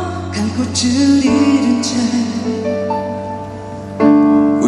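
A man singing a slow ballad live into a microphone over backing music with piano. The accompaniment swells to a louder, fuller chord about four seconds in.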